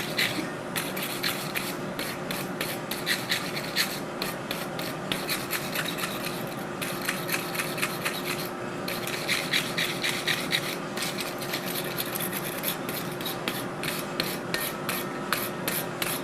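Wire brush scrubbing scale and impurities off a hot steel-and-nickel Damascus billet fresh from the forge, in quick repeated rasping strokes with a couple of brief pauses. A faint steady hum runs underneath.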